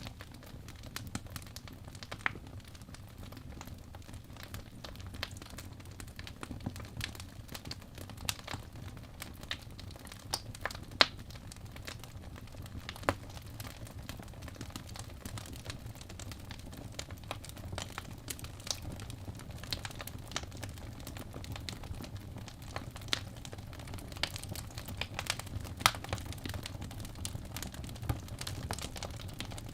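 Fire crackling in a fireplace: irregular sharp pops and snaps, a few much louder than the rest, over a steady low rumble of the flames.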